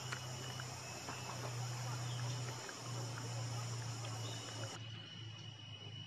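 Wetland insect chorus: steady high-pitched trilling with a low steady hum beneath and a few faint ticks. The high trilling drops out about five seconds in.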